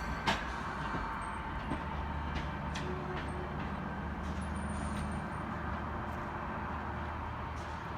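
Train running slowly, a steady low rumble and hum, with a few sharp clicks of wheels over rail joints in the first second.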